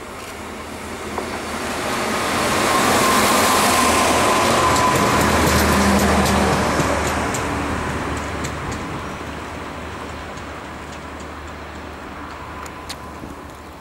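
Plasser & Theurer track maintenance vehicle passing close by on the rails: engine and wheel noise swell to a peak a few seconds in, then fade away as it recedes, with a thin whine at the loudest stretch and a low hum lingering in the fade.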